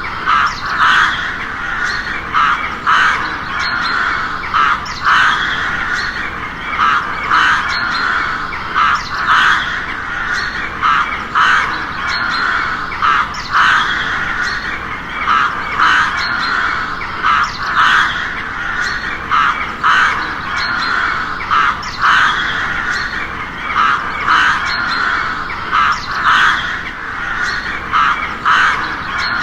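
Crow cawing over and over, caws coming roughly every half second to a second in a near-continuous run.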